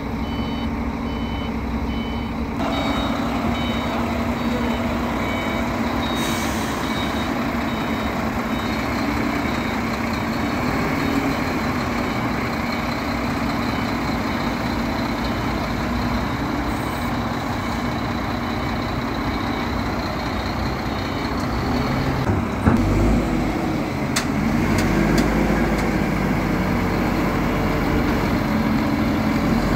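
Diesel engine of a Demag AC 220-5 all-terrain crane running under load as the crane drives forward in first gear onto a lowbed trailer, with a repeated electronic beep in the first couple of seconds. About 22 s in the engine note gets louder and deeper as the wheels climb onto the trailer, with a sharp knock about 23 s in.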